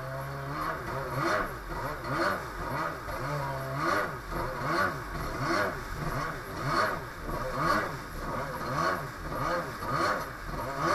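Two-stroke jet ski engine running under way, its pitch and loudness rising and falling about once a second.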